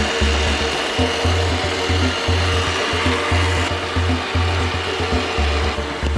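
Background music with a heavy, pulsing bass beat over a steady hiss.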